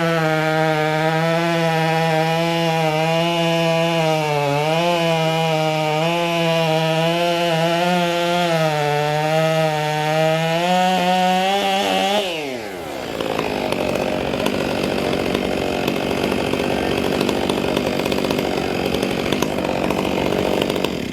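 Two-stroke racing chainsaw running flat out, its high engine note wavering slightly as it works through the wood. About twelve seconds in, the pitch drops away quickly, and a loud, rough noise with no clear pitch carries on to the end.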